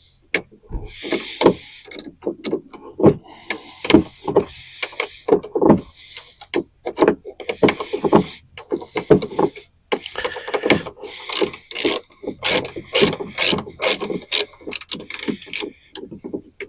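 Irregular clicks, knocks and rattles of hand tools and the latch mechanism being worked loose inside a 2014 Ford Fusion's driver door.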